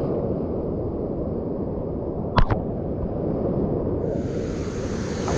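Steady, loud rumbling roar of water rushing over a rocky dam, with one sharp click about halfway through and a higher hiss joining near the end.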